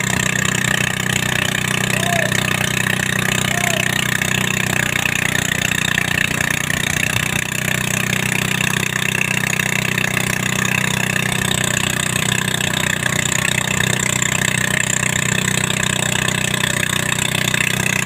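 Engine of heavy construction machinery running steadily, with no change in pitch or load.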